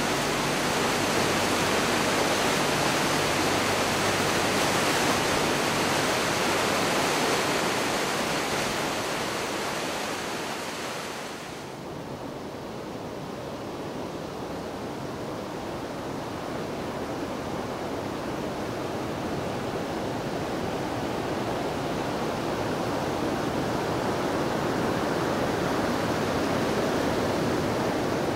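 Steady rushing of water. About twelve seconds in it changes abruptly to a duller, quieter rush that slowly grows louder again.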